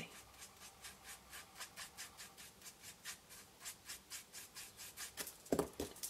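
Stampin' Blends alcohol marker tip rubbing over cardstock in quick, short colouring strokes, a faint scratch a few times a second. A louder short knock comes near the end.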